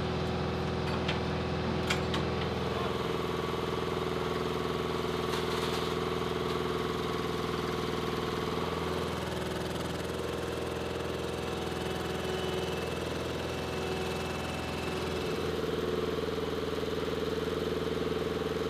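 Munitions lift truck's engine running steadily while it raises a weapon to the aircraft's wing pylon, its pitch shifting in steps a few times, with a couple of light metallic clicks near the start.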